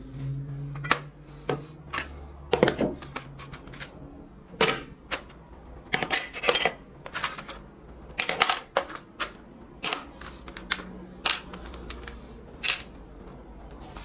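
Rusty metal parts of an old coffee grinder (burr housing, hopper plates, bar and screws) dropped one at a time into an empty plastic tub: a string of irregular clinks and clatters of metal on plastic and on other metal parts.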